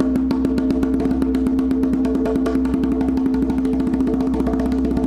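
Haitian hand drum played with fast, even open-tone strokes (fingers together, struck a little back from the center), each stroke ringing at the drumhead's pitch.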